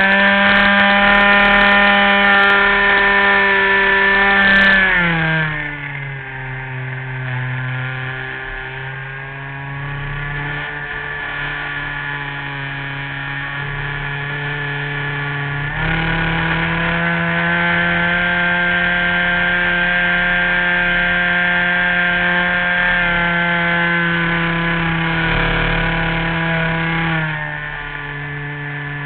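RC model airplane's engine in flight, heard up close from a camera mounted on the plane. It runs at high throttle, drops sharply about five seconds in and slowly picks up, opens up again about halfway through, and throttles back near the end.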